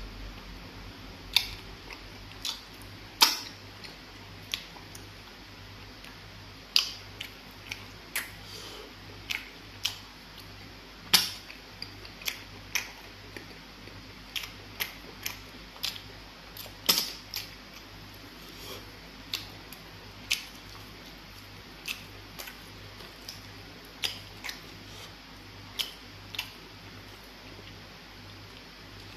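Close-miked mukbang eating sounds: sharp, wet mouth clicks and lip smacks at irregular intervals, about one a second and sometimes in quick pairs, from chewing and swallowing soft pounded fufu with egusi soup eaten by hand.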